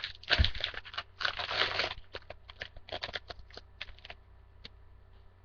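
A baseball card pack's wrapper tearing open and crinkling for about two seconds, followed by a string of light clicks and rustles as the cards are handled, then stillness.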